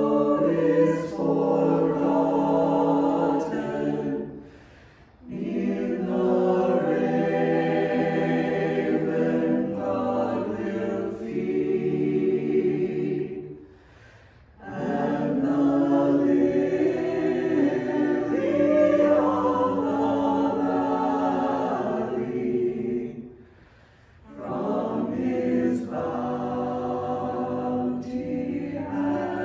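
Small mixed choir of men's and women's voices singing unaccompanied, in long sustained phrases, with brief pauses between phrases about five, fourteen and twenty-four seconds in.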